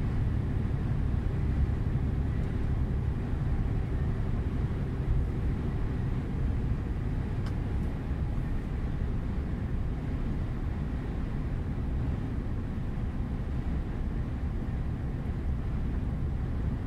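Inside the cab of a Scania 500S truck cruising on the highway: a steady low rumble of engine and road noise that holds even throughout.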